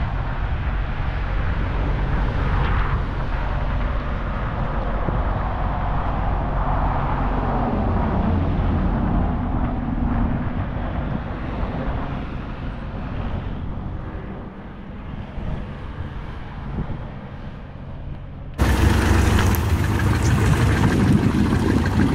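Steady outdoor car-lot noise with a low vehicle rumble. About eighteen seconds in it cuts sharply to a louder recording of a classic Ford Thunderbird driving slowly past, with wind buffeting the microphone.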